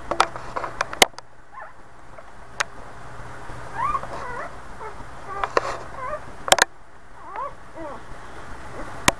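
Newborn Boxer puppies squeaking and whimpering in short, thin, rising-and-falling cries, scattered through the middle and latter part. A few sharp clicks stand out as the loudest sounds, near the start, past the middle and near the end.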